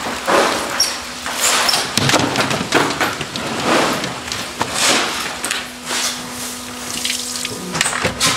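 Wet hatahata (Japanese sandfish) being swept by hand across a wet wooden sorting table and dropped into plastic baskets, making irregular watery splashes and slaps. A low steady hum runs underneath.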